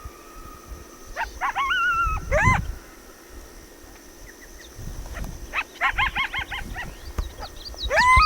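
Coyote calls: a rising howl held briefly about a second in, a quick run of short yips around six seconds in, and another rising howl near the end.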